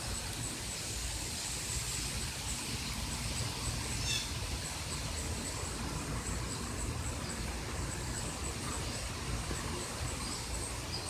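Outdoor background: a steady low rumble with an insect chirping high and evenly the whole time, and a brief higher chirp about four seconds in. No siren is sounding.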